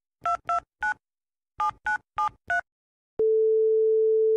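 Touch-tone telephone dialing: seven quick two-tone key beeps in two groups, then a steady ringing tone on the line starting about three seconds in.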